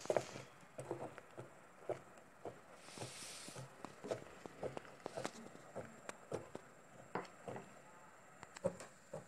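Spatula stirring milk in an enamel pot, with irregular light taps and scrapes against the pot's side and bottom, a few a second. A brief hiss about three seconds in.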